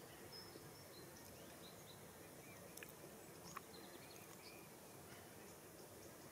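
Near silence: quiet outdoor ambience with faint, scattered short bird chirps and a couple of soft ticks.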